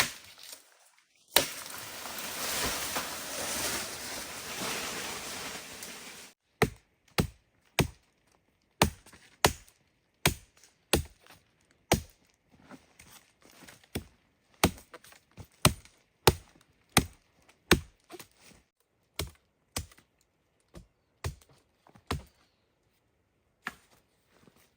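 Repeated sharp chopping strikes of a blade, roughly one to two a second and unevenly spaced, starting about six seconds in. Before them comes a few seconds of steady hissing noise.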